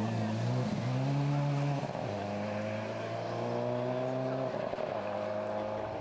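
Subaru Impreza rally car's flat-four engine pulling hard out of a gravel corner, its pitch climbing under throttle and dropping at gear changes about two seconds in and again past four seconds, with gravel spraying from the tyres.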